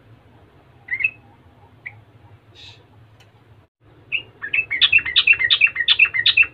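Yellow-vented bulbul giving a couple of short single chirps, then from about four seconds in breaking into a loud, fast bubbling run of many song notes.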